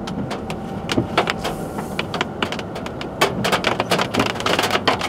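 Raindrops striking the windshield and roof of a moving car as separate sharp ticks, growing heavier about three seconds in, over the car's steady road noise.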